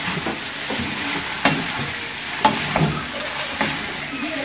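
Chow mein noodles sizzling in a wok on a gas flame while being tossed and stirred with a spatula and fork, the utensils knocking sharply against the pan a few times.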